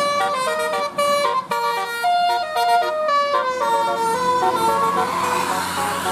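A bus's 'telolet' multi-tone musical air horn playing a quick melody of held notes that step up and down in pitch. A rush of noise builds under the notes near the end.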